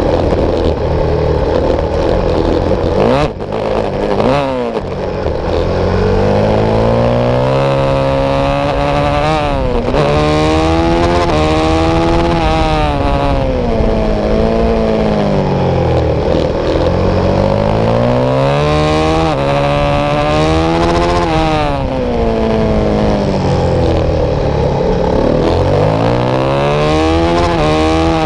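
Supermotard motorcycle engine under racing load, its pitch climbing through several upshifts, then falling as it brakes and downshifts for the corners, over and over. About three seconds in there is a brief drop in level with a sharp knock.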